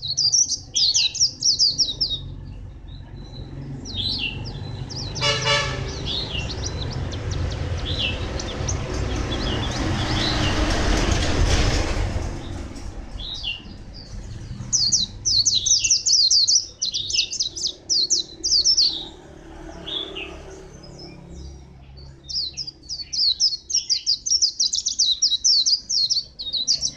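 A caged white-eye singing: bursts of fast, high, twittering notes near the start, in the middle of the second half and again near the end. In between, a rumble of passing traffic builds and fades, with a short horn toot about five seconds in.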